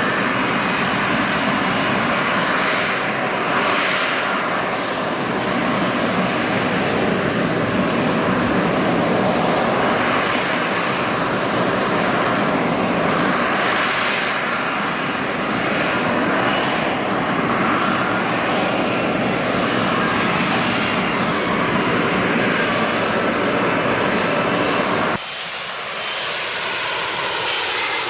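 F-35B jet running loudly and steadily through its hover and transition to forward flight. About 25 seconds in, the sound cuts to a quieter passage with a slowly falling pitch.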